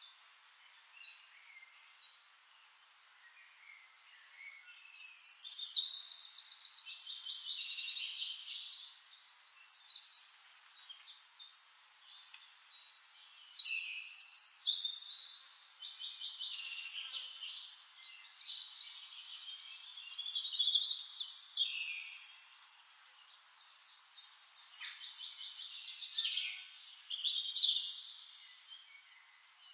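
A songbird singing: long, high-pitched phrases of rapid trills and whistles, each lasting several seconds, repeated four times with quieter gaps between.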